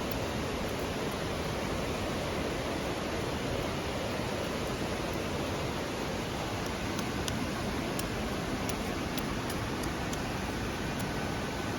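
Steady hiss of an open campfire with scattered sharp crackles and pops in its second half.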